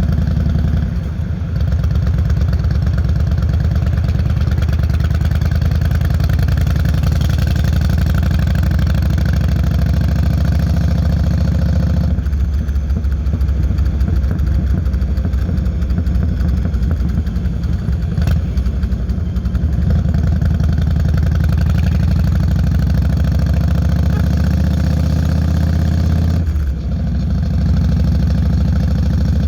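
Yamaha Road Star 1600's carbureted, air-cooled V-twin running through Vance & Hines Longshots exhaust pipes with a steady, deep beat. About twelve seconds in the beat turns slower and more uneven, and the sound dips briefly about a second in and again near the end.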